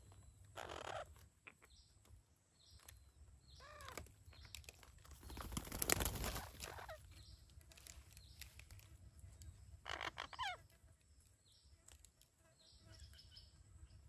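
Parakeets at a tree-hole nest giving short calls with a bending pitch about a second in, near four seconds and again around ten seconds, with fainter high calls between. A louder rustling noise rises and falls around the middle.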